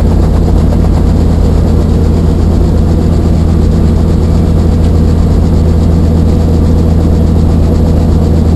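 Light helicopter's engine and rotor running steadily at idle on the ground, heard from inside the cabin: a loud, even drone with a deep, steady hum.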